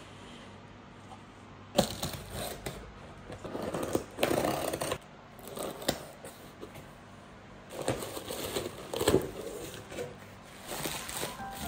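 A cardboard parcel being handled and cut open with a box cutter on a wooden table, in several bursts of knocks, scraping and crinkling packaging. A sharp knock about two seconds in is the loudest sound.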